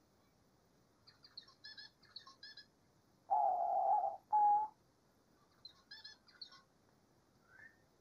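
Diamond dove cooing: one long, steady coo a little over three seconds in, followed at once by a short second coo. Faint high chirping comes before and after.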